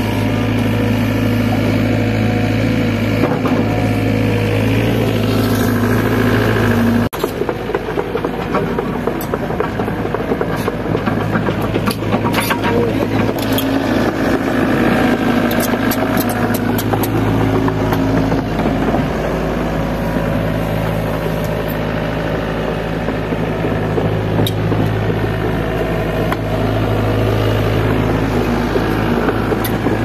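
Crawler excavator's diesel engine running steadily under load, with scattered knocks and clanks over it. The sound changes abruptly about seven seconds in.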